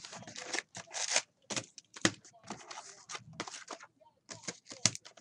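Foil trading-card packs crinkling and a cardboard box scraping as the packs are pulled out by hand and stacked, in a quick, irregular run of crackles and rustles.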